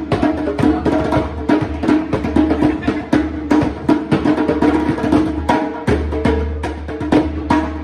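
Upbeat Samoan dance music driven by quick, rapid wooden percussion strikes over a steady bass beat.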